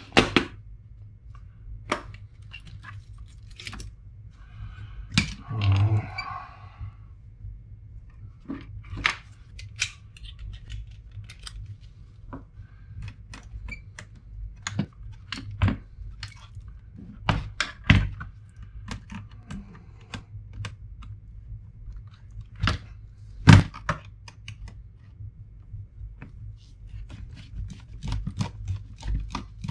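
Scattered clicks, taps and knocks of hard plastic laptop parts and circuit boards being handled and pried during a teardown, with one sharper knock a little after the middle, over a steady low hum.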